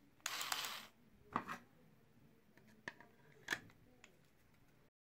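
Hard plastic handling sounds from a cordless screwdriver's housing: a short scrape, then several sharp clicks and knocks as the two shell halves are fitted together over the motor and wiring.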